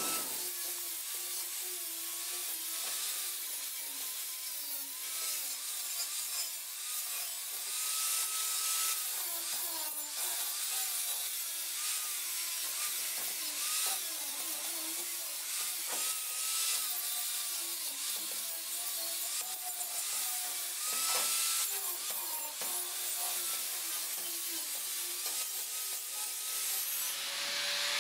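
Handheld angle grinder grinding metal: a hiss of the abrasive disc on the metal over a motor whine that wavers up and down in pitch.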